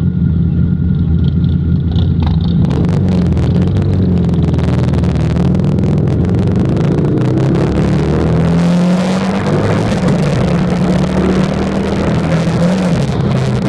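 Harley-Davidson Night Rod Special's V-twin engine running at a stop, then pulling away and accelerating, with wind rush building as speed rises. The engine pitch climbs and drops at gear changes a little past halfway and again near the end.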